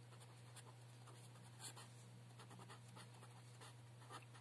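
Faint scratching strokes of a felt-tip pen writing words on paper, over a steady low hum.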